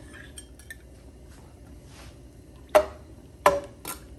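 Metal kitchen utensils knocking against cookware while ginger-garlic paste goes into hot oil in a wok: a few faint clicks, then three sharp, ringing clinks in the second half.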